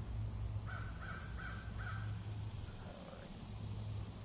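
A crow cawing four times in quick, even succession, starting under a second in, over a steady high-pitched insect drone.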